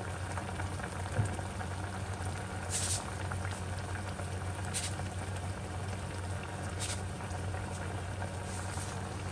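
Young jackfruit (polos) curry simmering in a saucepan on a gas burner, a steady fine bubbling over a constant low hum, with a brief higher hiss about every two seconds.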